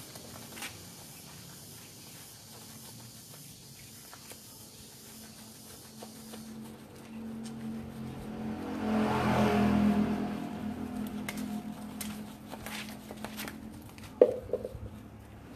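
A motor vehicle's engine hum swells and fades, loudest about two-thirds of the way through, as it passes. A single sharp knock follows near the end.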